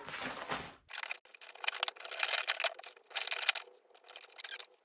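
Food packets rustling and small items clicking and knocking as they are pushed and fitted into a storage box, in irregular handling clusters.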